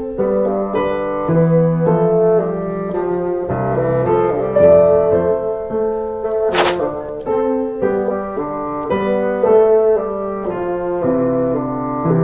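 Background keyboard music, a melody of held piano-like notes, with one short sharp knock about two-thirds of the way through.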